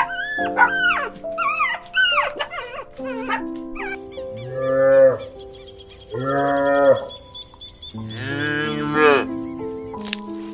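A cow mooing three times, each moo long and low, over background music. A few short, high-pitched animal calls come before the moos.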